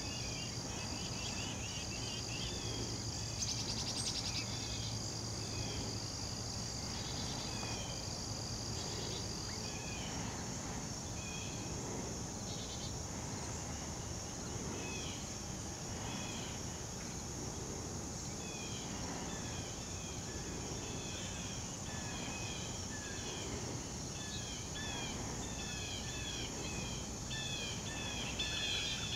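Insects calling steadily in woodland, with a high, even trill that stops about ten seconds in. Short chirps are scattered throughout and grow busier near the end.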